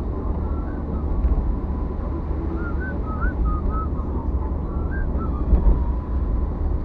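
Road noise inside a moving car's cabin: a steady low rumble with tyre hiss on a rain-wet road.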